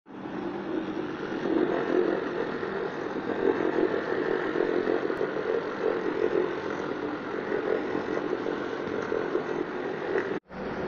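Carpet cleaning machine running with a steady motor drone, cutting out for an instant near the end.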